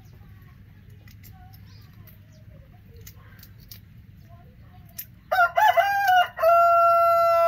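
A rooster crowing about five seconds in: a few wavering notes, then one long held note.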